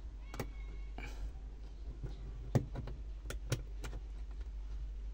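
Scattered small clicks and taps of fingers handling an LED interior cabin light in its plastic roof fitting, the loudest about two and a half seconds in, over a steady low hum.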